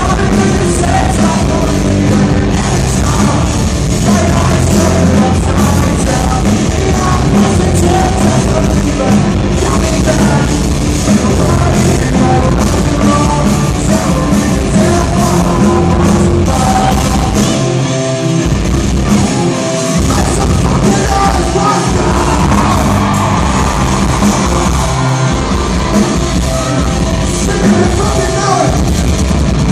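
Live pop-punk band playing loud, with distorted electric guitars, bass, drums and a singer, heard from within the crowd. The bass and drums drop out briefly a couple of times about two-thirds of the way through.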